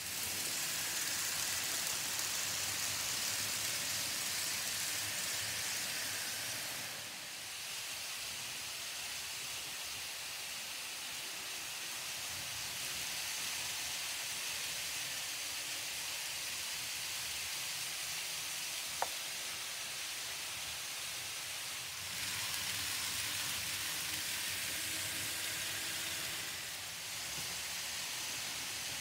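Several N-scale model trains running on Kato Unitrack, their small motors and wheels making a steady hissing whir that grows louder for the first several seconds and again for a stretch near the end. One sharp click about two-thirds of the way through.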